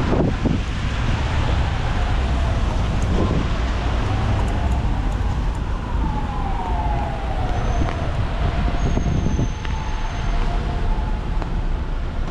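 An emergency vehicle's siren wailing in slow rising and falling sweeps, faint over a steady low rumble of street noise.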